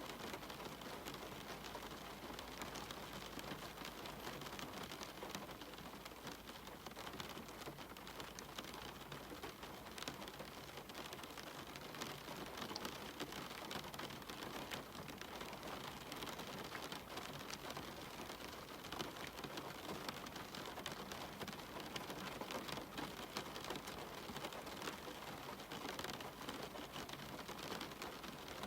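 Steady rain, a soft even hiss dotted with many faint fine ticks.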